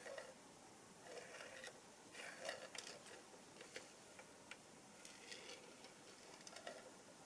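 Near silence: room tone with faint, scattered small clicks and rustles.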